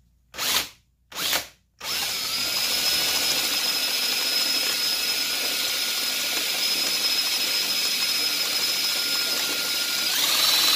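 Power drill driving a hand-cranked ceramic burr coffee grinder through a 3D-printed adapter: two short blips, then a steady run with an even whine that speeds up near the end. The drill is turning the grinder backwards, so the burrs spin without grinding any coffee.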